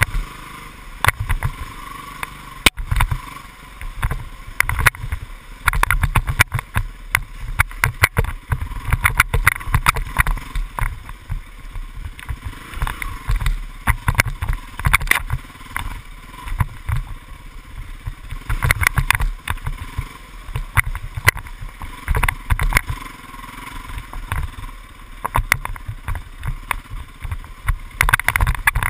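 Dirt bike engine running as the bike rides a rough wooded trail, with frequent knocks and rattles from the bumps.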